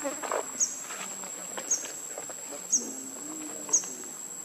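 Insects in the surrounding vegetation make a steady high-pitched drone, over which a short, sharp chirp repeats about once a second, four times.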